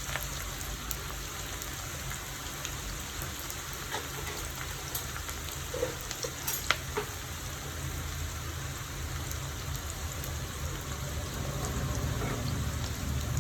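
Thinly sliced onions sizzling as they fry in hot coconut oil: a steady crackling hiss with a few sharp pops.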